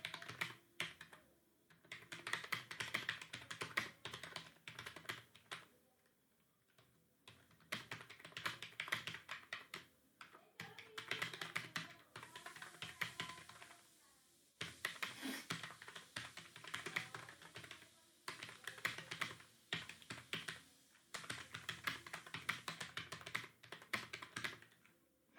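Fast typing on a computer keyboard: rapid runs of key clicks in bursts of a few seconds, broken by short pauses.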